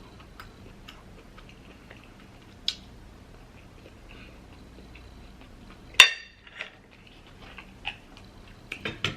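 Small clicks and taps of a lobster claw's shell and eating utensils being handled at a plate. A sharp ringing clink comes about six seconds in, and a few quick clicks come near the end.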